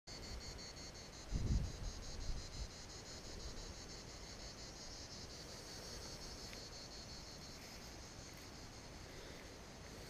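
Insects chirping in a dense, even high-pitched pulsing that repeats several times a second and carries on steadily. A few low thumps come about a second or two in.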